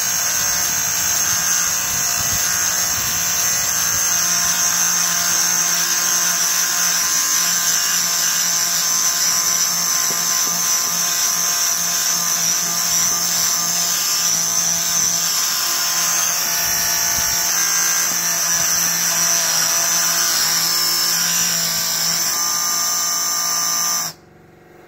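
Compressed air blasting from an air filter cleaning wand inside a large cylindrical hay grinder air filter, a loud, steady, high hiss as the air drives dust out through the filter. The air cuts off suddenly near the end.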